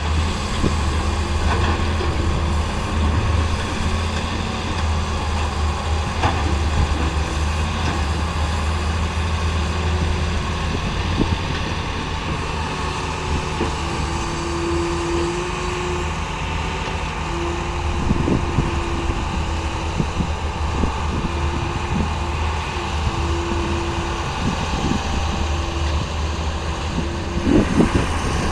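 Caterpillar E70 excavator's diesel engine running steadily under work, with a whining tone that comes and goes in short stretches over the second half. A few knocks break in, with a cluster near the end.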